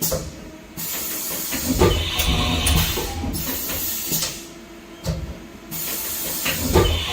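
Haas VF-2SS vertical machining center doing a tool change: stretches of compressed-air hiss and several mechanical clunks, the clearest near two, five and seven seconds in.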